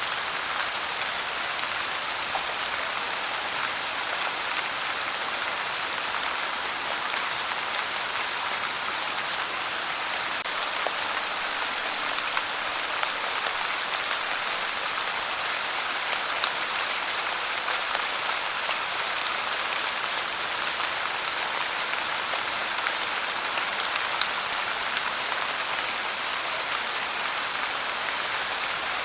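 Steady rain, a constant even hiss of falling drops with scattered small drop ticks.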